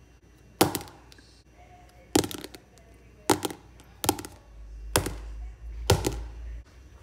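Pens, a mechanical pencil and markers set down one at a time onto a sketchbook: six sharp taps roughly a second apart.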